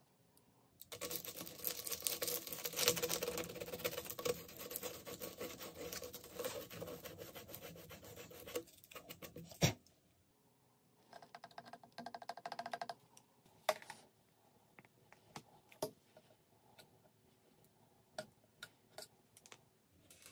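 Scraping of hard PVC plastic as the edge of a small drilled hole in the pipe wall is cut into a chamfer. It is a dense rasping that runs for about eight seconds and ends with a sharp click. After a pause comes a shorter burst of quick scraping, then scattered light clicks and taps.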